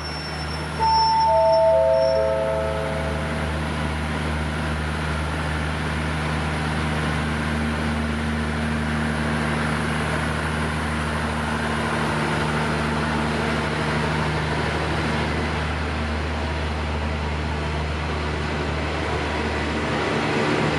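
Diesel-electric locomotive idling steadily, with a four-note descending chime about a second in that closes the station's PA announcement.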